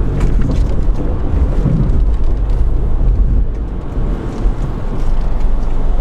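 Car cabin noise while driving: a steady low rumble of the engine and tyres on the road, heard from inside the car.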